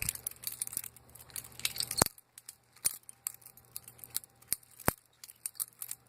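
Butterfly knife being flipped: its metal handles clatter in rapid, irregular light clicks, with a few sharper clacks as the handles snap together.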